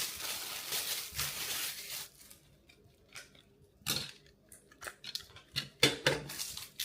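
Smoke-alarm packaging being opened by hand: rustling and tearing for about two seconds, then a few sharp clicks and knocks as the parts are handled.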